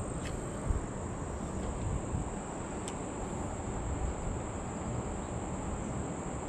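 Insects chirring in one steady high note over a low steady rumble of outdoor background noise, with one soft knock about a second in.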